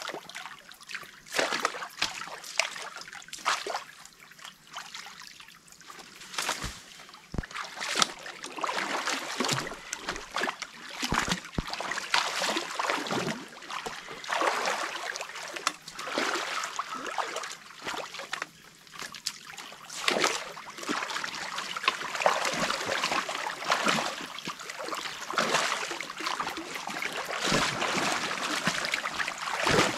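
Water trickling and splashing as it drains through a breach in a beaver dam, with irregular splashes and knocks from the dam being dug out throughout.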